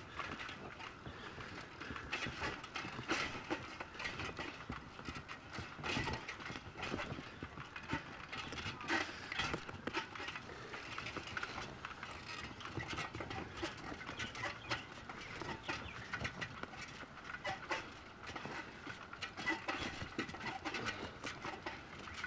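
Irregular light clicks, knocks and rattles from a bicycle ridden along a concrete sidewalk.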